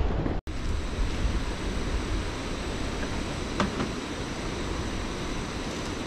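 Steady outdoor background noise, an even rushing hiss with no clear source, which drops out for an instant just under half a second in; a faint click about three and a half seconds in.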